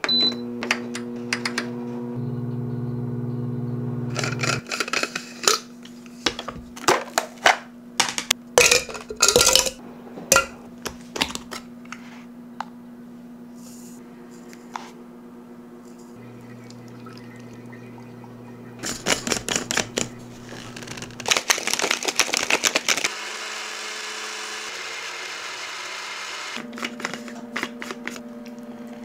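Kitchen work sounds: clusters of sharp clinks and knocks, like utensils and dishes being handled, over a steady electric hum, with a few seconds of hiss about twenty-three seconds in.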